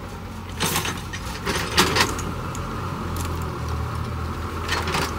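Heavy FAW dump truck's diesel engine running steadily at low revs, with a few short sharp noises about a second in, around two seconds in, and again near the end.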